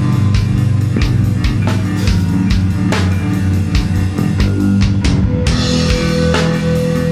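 Rock music played by a full band, with a drum kit hitting steadily over guitars. A held high note comes in about five and a half seconds in.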